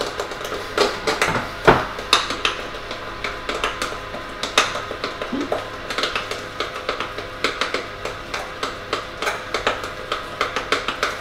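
A utensil stirring thick brownie batter in a glass mixing bowl, with quick irregular clinks and scrapes against the glass, several a second.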